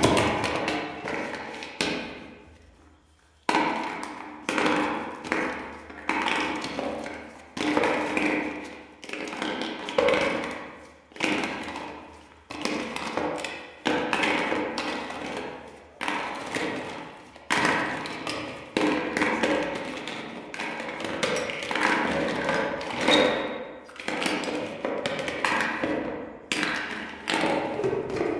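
Hollow plastic toy fruit and vegetable pieces knocking against each other and against a plastic bowl and a hard surface as they are taken out and set down, about one knock a second.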